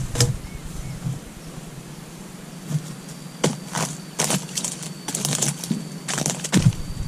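Dry oil palm fronds rustling and crackling in short bursts as they are grabbed and pulled by hand, with a faint steady high-pitched whine from about four seconds in.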